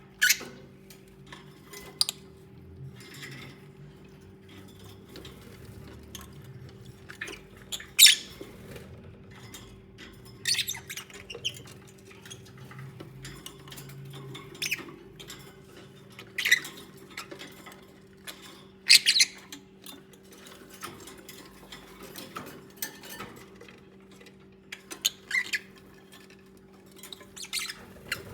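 Lovebirds giving short, sharp, high chirps and squeaks every few seconds, with faint scratching and rustling between the calls. A steady low hum runs underneath.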